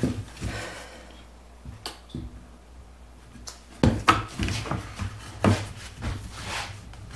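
Pine 2x4 boards being handled and set down on a plywood workbench: scraping and light knocks, with a sharper wooden knock about four seconds in and another about five and a half seconds in.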